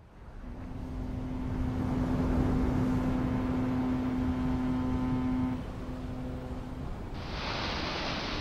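A foghorn sounding one long, steady blast over low wind noise; it stops about five and a half seconds in and dies away. Near the end the hiss of waves washing on a shore comes in.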